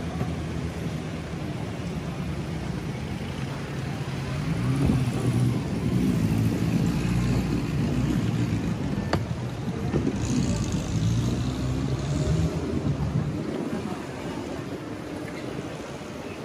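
Motor vehicle engine running close by over general street noise. It grows louder about four seconds in and fades again near the end.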